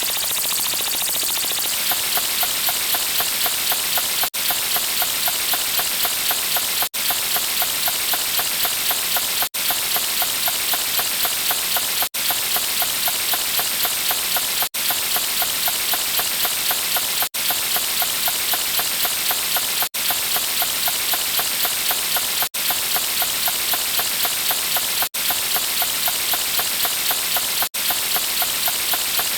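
Steady, rain-like hiss, looped as a sound effect, with a fast flutter from about two seconds in and a brief cut-out about every two and a half seconds where the loop restarts.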